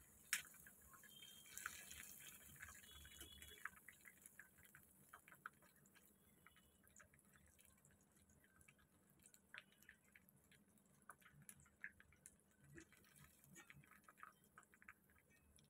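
Faint, scattered pops and crackles from hot cooking oil in a kadai as deep-fried prawns finish frying and are lifted out; the loudest pop comes just after the start, the rest are sparse and irregular.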